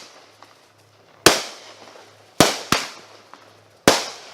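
Consumer aerial fireworks bursting: four sharp bangs, the first about a second in, two close together in the middle and one near the end, each trailing off over about half a second.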